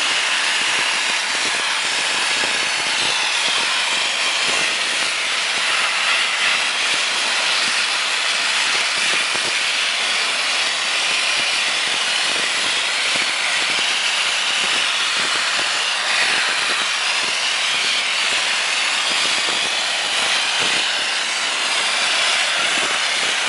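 Dry ice blasting gun spraying a jet of compressed air and dry ice pellets to clean grime off machine parts: a steady, even hiss with no breaks.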